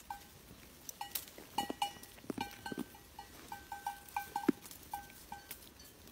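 A goat biting and chewing a berry-laden vine held out by hand: crisp crunching and snapping of stems and berries, with short ringing clinks scattered throughout.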